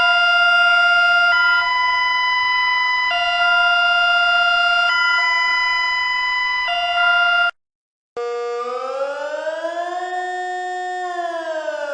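Two-tone emergency alert alarm stepping back and forth between a higher and a lower pitch about every two seconds, given as Bulgaria's alert. It cuts off after about seven and a half seconds, and after a short gap a Swiss civil-defence siren starts a slow rising and falling wail.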